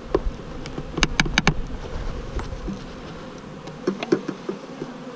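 Honeybees from an opened package buzzing steadily in a dense swarm, with a quick series of sharp clicks and knocks about a second in and a few more near four seconds.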